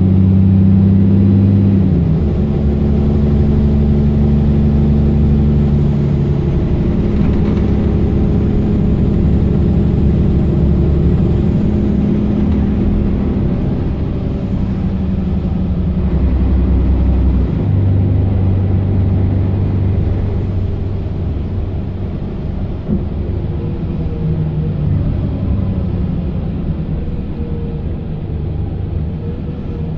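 Mercedes-Benz Citaro O530 LE bus's 12-litre OM457hla diesel engine running as the bus drives, heard from inside the passenger cabin. The engine note steps down about two seconds in and shifts again a little past halfway.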